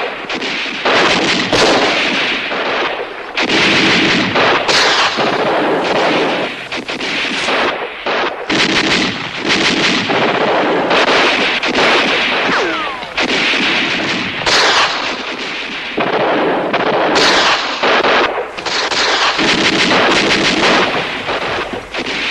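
Dense gunfire on a war-drama soundtrack: rapid rifle shots following one another with hardly a pause. A falling whine comes about halfway through.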